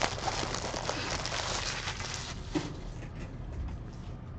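Plastic wrapping on trading card packs crinkling and crackling as the packs are handled and opened, thinning to a few scattered crackles after about two and a half seconds.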